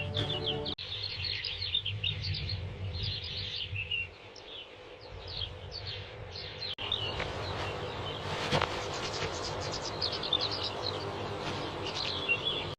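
Many small birds chirping and twittering in a dense chorus of short, quick high calls, over a low background rumble. The sound cuts out for an instant twice, about a second in and again past the middle.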